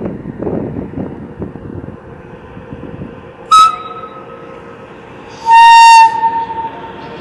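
FS E.633 electric locomotive's horn sounding two notes: a short higher blast about three and a half seconds in, then a longer, louder, lower blast about two seconds later. A low rumble from the approaching freight train runs underneath.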